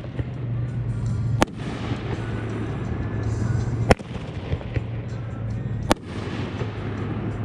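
Consumer fireworks going off: three sharp bangs about two seconds apart.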